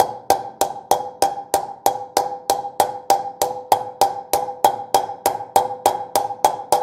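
Hammer striking an old wheel bearing used as a drift, tapping a new bearing into a motorcycle wheel hub: even metal-on-metal strikes about three a second, each with a short ring. The bearing is being driven in round its edge so that it seats without distorting.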